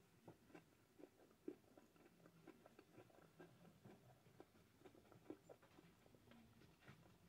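Faint chewing with the mouth closed: soft, scattered wet clicks and smacks from a mouthful of ice cream with cookie dough.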